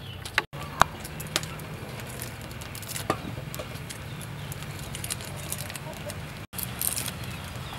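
Small knife clicks and scrapes as garlic cloves are peeled by hand, over a steady low hum. The sound cuts out briefly twice.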